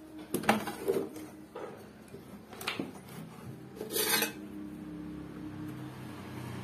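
Clatter of a CRT television's main circuit board being handled and shifted on a workbench: a few separate knocks and rattles, the loudest about four seconds in as the board is lifted.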